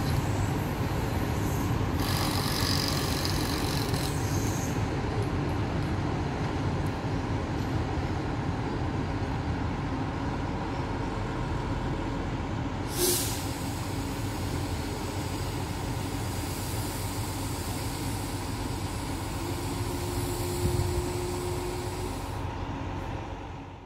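Steady low rumble of rail vehicles at a station, with a sharp click about halfway through and a short steady tone near the end.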